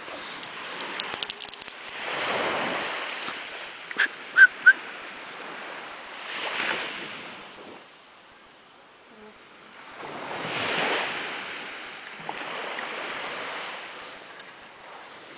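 Sea surf washing onto a sandy beach in slow swells that rise and fall every few seconds. About four seconds in come three short high-pitched peeps close together.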